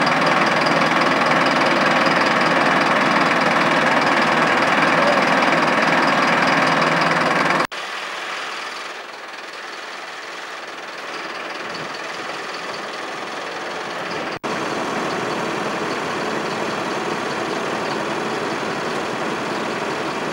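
Truck engine running steadily, powering the truck-mounted crane that holds the statue on its straps. The sound breaks off abruptly twice, about a third and two thirds of the way through, and is quieter between the breaks.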